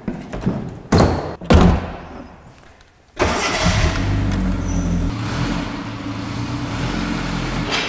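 Two sharp thumps about a second apart, then a little after three seconds the classic Mini Clubman camper's A-series four-cylinder engine starts abruptly and runs on at a steady idle.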